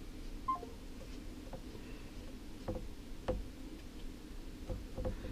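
Smartphone on speakerphone giving a short two-note electronic beep as the call drops, followed by several soft taps and clicks of a thumb on the touchscreen as the number is redialled.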